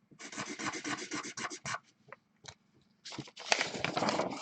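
Quick scratching and rubbing against a surface in two spells of about a second and a half each, with a short pause between.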